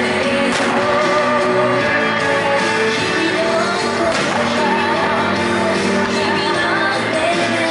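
A song with a singer and band accompaniment, playing steadily.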